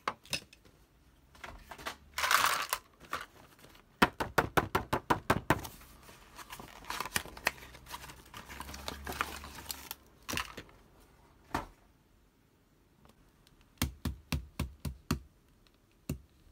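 Hands unpacking a boxed fashion doll, handling the cardboard box and plastic packaging: a short rustle about two seconds in, then quick runs of sharp clicks and taps, with a second run near the end.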